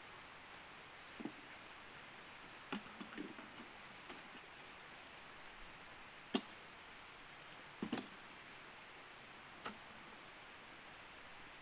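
Two puppies play-fighting on dry grass and leaves: scattered rustles and half a dozen short, sharp snaps over a faint steady high hiss.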